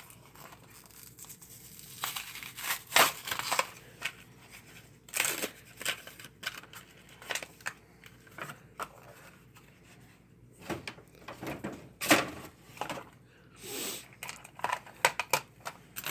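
Toy packaging being torn open and crinkled by hand, in irregular bursts of tearing and rustling.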